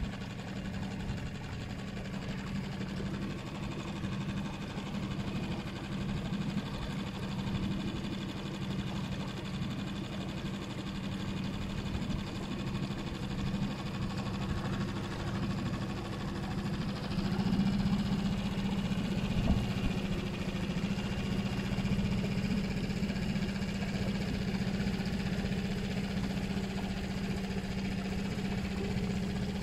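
Boat's outboard motor running steadily, a continuous drone that grows a little louder about halfway through.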